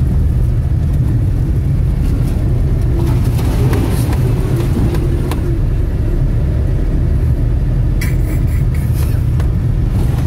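A car driving slowly over a rough, potholed dirt track, heard from inside the cabin: a steady low rumble of engine and tyres, with scattered knocks and rattles as it bumps over the ruts.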